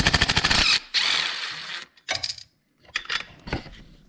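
Hand ratchet with a 13 mm socket on an extension clicking in a quick, even run for just under a second as it backs off a bracket nut on the engine's valve cover. It is followed by a short scraping noise and a few light metallic clicks and taps.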